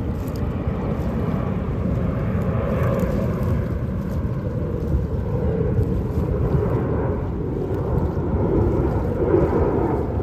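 Airplane engine noise from an aircraft in flight: a steady low rumble with a faint tone that slowly shifts in pitch.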